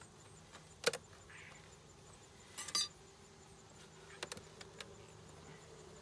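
A metal hive tool and wooden hive boxes knocking and clinking as a beehive's top box is worked loose and lifted off: a sharp knock about a second in, a quick cluster of ringing clinks near the middle, and a few lighter knocks later, over a faint steady hum.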